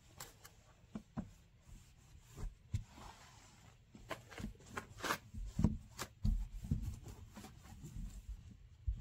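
A cloth being rubbed by hand over the painted rear panel of a Citroën 2CV: soft irregular rubbing and wiping strokes, broken by scattered light knocks and dull bumps.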